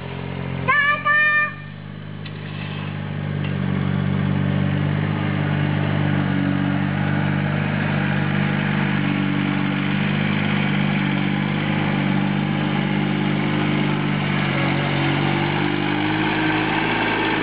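Compact tractor-loader-backhoe engine running steadily as the tractor drives, getting louder over the first few seconds as it comes closer and then holding level.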